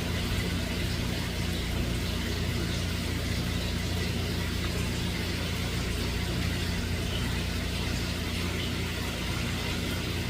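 A motor running steadily: a constant low hum with an even hiss above it, unchanging throughout.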